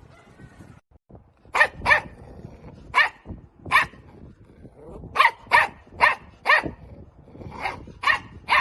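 A dog barking repeatedly: about eleven sharp barks starting a little over a second in, several of them coming in quick pairs.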